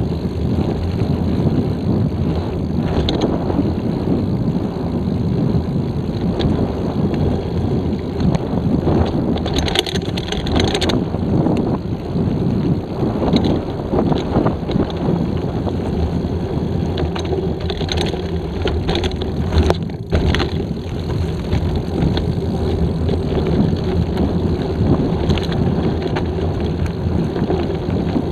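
Mountain bike riding fast along a dirt forest singletrack, heard from a camera mounted on the bike: steady wind noise on the microphone and tyres rolling on dirt, with the bike rattling and knocking over bumps. A cluster of sharper knocks comes about ten seconds in, and another a little under twenty seconds in.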